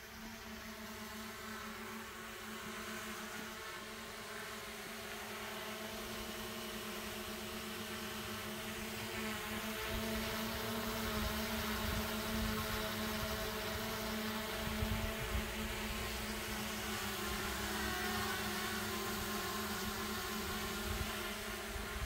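Small DJI Mini-series quadcopter drones hovering, their propellers giving a steady buzzing whine made of several held tones. It grows louder about ten seconds in as one drone comes close.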